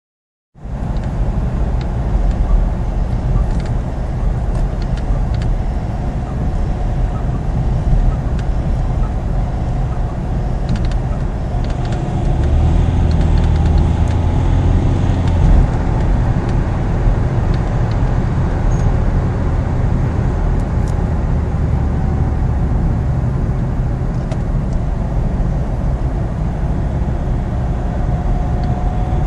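Citroën C4 engine running steadily with a squeak, a thin wavering tone above the engine's drone; the squeak shows around 2000 rpm. The drone grows a little stronger about twelve seconds in.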